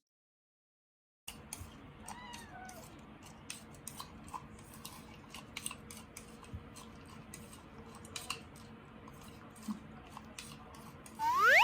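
Scottish Fold kitten meowing once near the end, a loud rising call. Before it, after about a second of dead silence, there are faint short chirping calls about two seconds in and light scattered clicks and taps.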